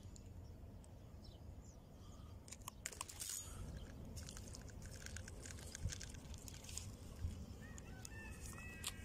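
Faint low rumble of wind and handling on the microphone, with scattered clicks and crackles in the middle, and a few short bird chirps near the end.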